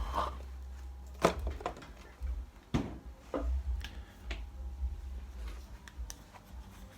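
Handling and rummaging sounds: a series of irregular clicks and knocks over a low rumble, the sharpest about a second in and just before three seconds in.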